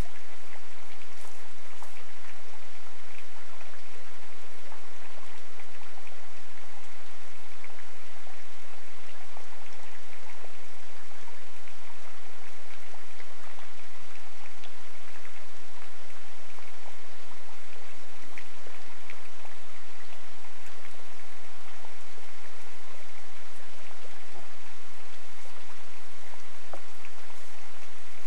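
Steady rain falling, an even hiss with the scattered patter of individual drops striking a surface.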